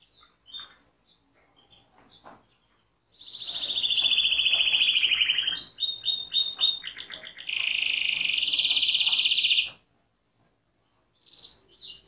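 Caged domestic canary singing: a few scattered chirps, then from about three seconds in a loud, fast rolling trill, a broken run of short notes, and a second long, even trill that cuts off sharply, with a few faint chirps near the end.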